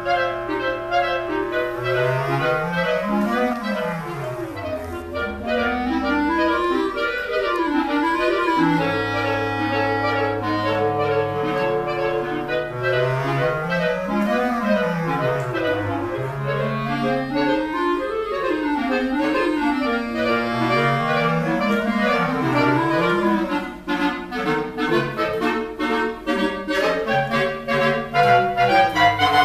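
Clarinet quartet playing: three clarinets hold chords over a bass clarinet's low runs that sweep up and down again and again. About twenty-four seconds in, the parts change to short detached notes.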